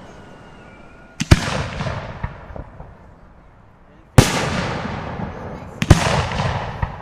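Aerial firework shells bursting, each a sharp bang followed by a slowly fading crackle and rumble: a close pair about a second in, one about four seconds in, and another quick pair near six seconds.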